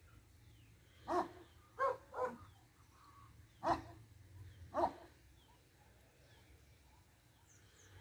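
A dog barking, five short barks over the first five seconds, with a few faint bird chirps.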